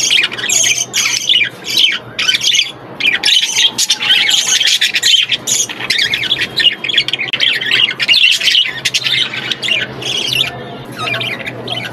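Budgerigars chattering and squawking without a break, many quick, high chirps overlapping.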